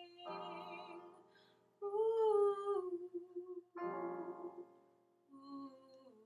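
A woman singing a slow song to her own piano accompaniment: a piano chord that dies away, a held sung note with a slight waver in pitch, then another chord fading out.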